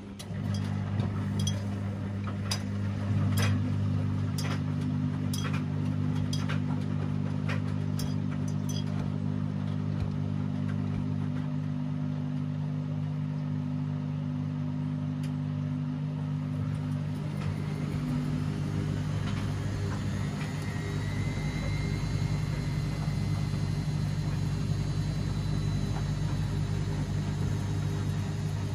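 Washing machine running: a steady motor or pump hum starts at once, with about ten light clicks in the first nine seconds. About eighteen seconds in, a deeper rumble sets in and a whine rises and then holds steady as the drum speeds up.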